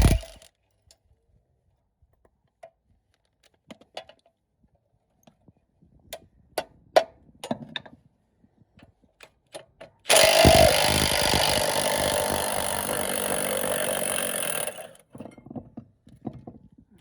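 Scattered metallic clicks and knocks of tools and parts being handled, then a power tool runs in one loud burst of about five seconds that starts and stops abruptly.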